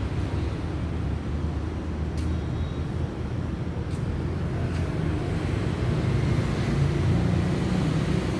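Woodworking machine running steadily with a low mechanical hum, and a few faint clicks.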